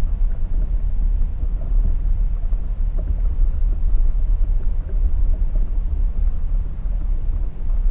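Wind buffeting the microphone outdoors: a loud, steady, uneven low rumble with no engine tone in it.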